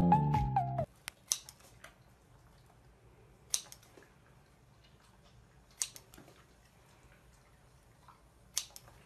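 Scissors snipping through a raw carrot: four sharp snips about two seconds apart, each followed by a few faint ticks. A pop song plays and stops abruptly about a second in.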